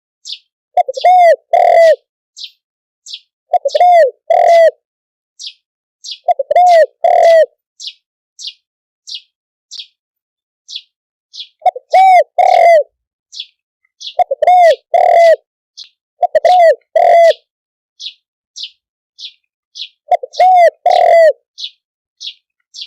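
Spotted dove cooing: seven short phrases of two or three low, hooting coos a few seconds apart. A small bird's short, high chirps repeat about twice a second between them.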